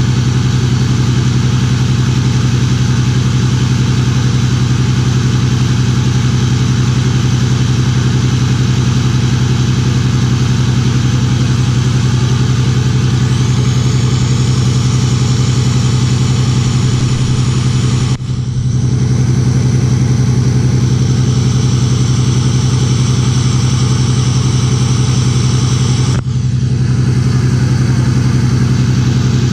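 A 5th-generation Ram 2500's 6.7 L Cummins inline-six turbodiesel idles steadily. It has a loud, deep exhaust note that no longer sounds stock; the owner thinks the exhaust has come apart or fallen off. The level dips briefly twice, about two-thirds of the way through and near the end.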